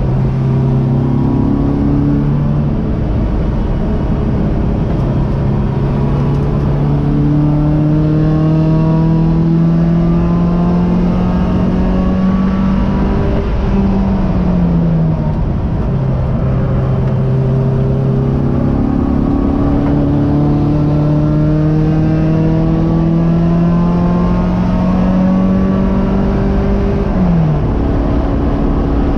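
Race car engine heard from inside the cockpit under hard acceleration, its pitch climbing steadily through long pulls. The pitch drops sharply about halfway through and again near the end as the driver lifts off. Road and tyre noise runs underneath.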